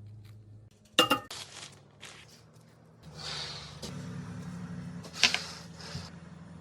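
Kitchenware being handled: a sharp ringing clink of a dish or utensil about a second in, some scraping and rustling, then another clink about five seconds in, over a steady low hum.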